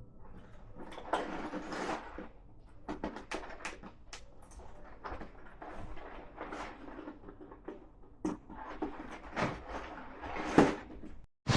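Packaging being handled by hand: an irregular run of rustles, taps and clicks, stopping abruptly near the end.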